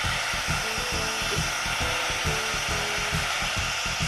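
Vacuum fluid extractor running steadily, a hiss with a fast low pulsing, as it sucks the oil out of a pulse tool's pulse unit through a thin hose in the fill port.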